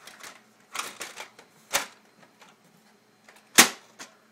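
Toner cartridge being pushed into an HP LaserJet P2015d laser printer with a series of plastic clicks and knocks. About three and a half seconds in comes the loudest event, a single sharp clack as the printer's top cover is shut.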